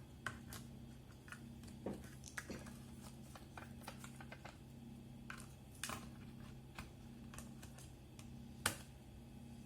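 Scattered small clicks and taps of a laptop's drive parts being handled as an SSD is fitted to its SATA connector, with one sharper click near the end. A steady low hum runs underneath.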